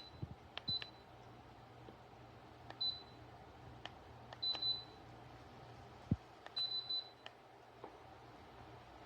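Dreo oil-filled radiator heater heating up: scattered faint clicks and short, high metallic tinks as the oil inside warms, over a steady low hum.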